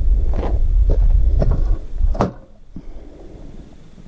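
Footsteps on dry dirt, about two a second, with wind rumbling on the microphone. About two seconds in, both cut off suddenly to a much quieter background.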